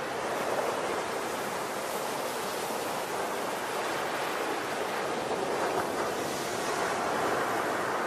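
Ocean surf breaking on a sandy beach: a steady rushing wash of waves and foam.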